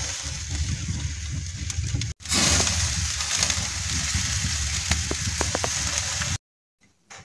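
Sausage and bread sizzling on a charcoal grill over glowing coals: a steady hiss with a low rumble beneath. It breaks off for a moment about two seconds in, a few light clicks come near five seconds, and it cuts off abruptly near the end.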